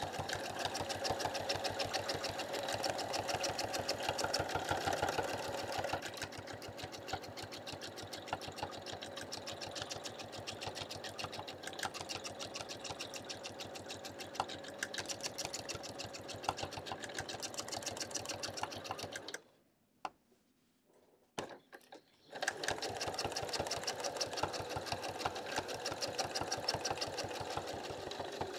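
Domestic sewing machine stitching fast and evenly in free-motion quilting, its needle and hopping foot going through the quilt layers. It stops for about three seconds a little past two-thirds of the way through, with a couple of clicks, then starts stitching again.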